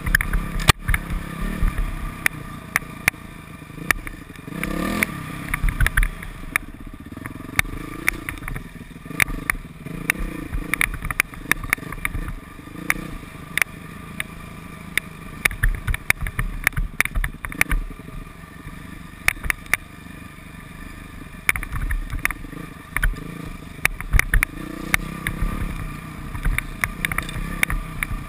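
Yamaha YZ426F four-stroke single-cylinder dirt bike engine running off-road, its revs rising and falling, with frequent sharp knocks and clatter.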